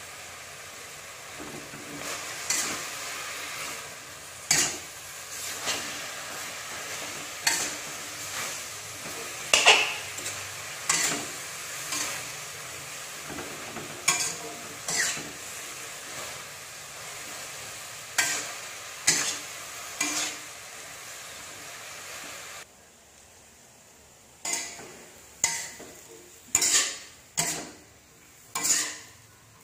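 Metal spatula scraping and knocking against a metal wok every second or two as beef and garlic stems are stir-fried, over a steady sizzle. About two-thirds of the way through the sizzle drops away, leaving the spatula strokes alone.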